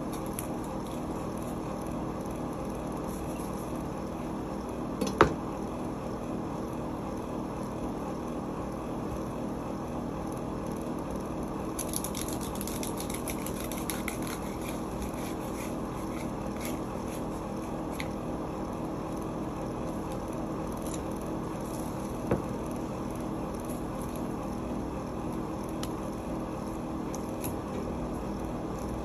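Steady hum of a kitchen, with faint scraping and ticking from knife work on a whole salmon and two sharp knocks, the louder one about five seconds in.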